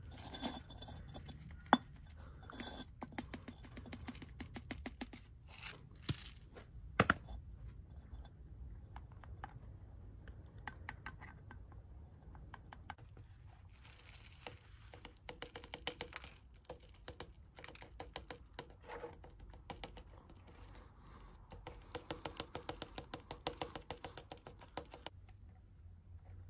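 Granular potting mix trickling from a plastic soil scoop into a small ceramic pot: a long stream of small grains clicking and rattling, with a few sharper knocks.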